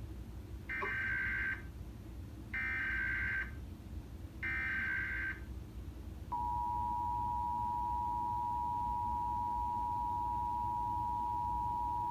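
Emergency Alert System SAME header: three short bursts of buzzy data tones, each just under a second long and about two seconds apart. Then the steady two-tone EAS attention signal begins and holds.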